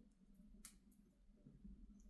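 Wood fire in a fireplace crackling faintly, with a sharp pop a little over half a second in and a lighter tick shortly after, over a steady low hum.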